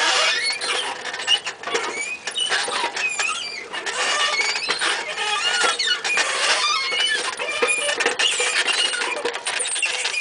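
Rusty old tricycle squeaking and creaking over and over as it is ridden, short high squeals from its rust-stiffened parts.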